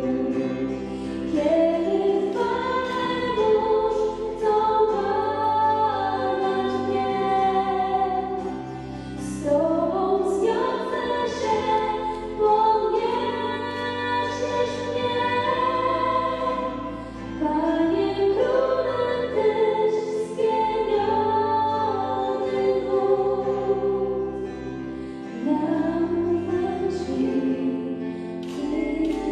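Church wedding music: a slow sung worship song, voices over held keyboard chords and bass notes, with several sliding vocal phrases.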